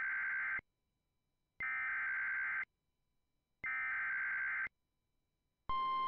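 Emergency Alert System SAME header: three one-second bursts of screechy digital data tones, about a second apart, the first already under way. Near the end the steady, single-pitched EAS attention tone starts.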